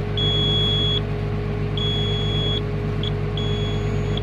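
Cab warning buzzer of a Komatsu PW180 wheeled excavator beeping in a steady repeating pattern, three high beeps of just under a second each with a brief blip between the second and third, over the steady low hum of the machine running. The alarm is sounding for low brake oil pressure.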